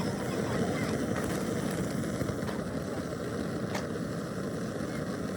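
Steady low rumbling noise, engine-like, with a few faint sharp clicks.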